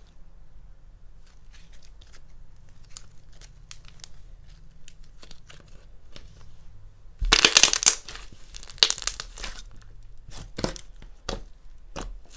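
Glue-All slime being stirred in a bowl with a mixing tool as it activates: sticky clicks and tearing, crackling sounds. They are faint at first, with a loud burst of crackling about seven seconds in and sharper single crackles after it.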